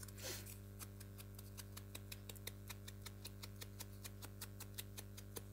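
Faint, rapid, evenly spaced ticking, about seven ticks a second, over a steady low hum, with a brief light rustle just after the start.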